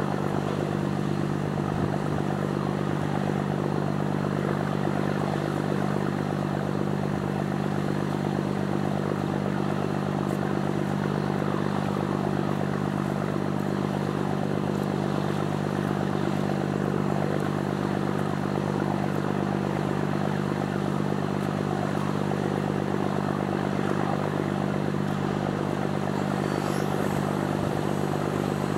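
A ship's engine running steadily: a constant low drone that holds the same pitch and level throughout.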